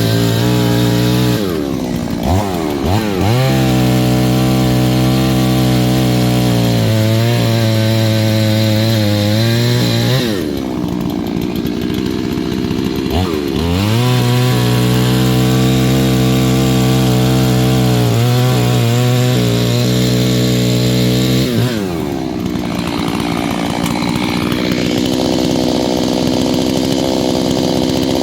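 A new Holzfforma petrol chainsaw being run in, held at high revs for two long stretches of several seconds. Each stretch ends with the engine dropping back, and near the end it settles at a lower, steady speed.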